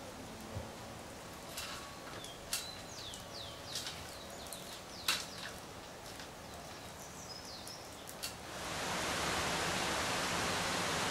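Birds chirping in short falling notes over a quiet outdoor background, with a few sharp clicks and light knocks from hands working on the trailer's awning arm. About eight and a half seconds in a steady hiss sets in and covers the rest.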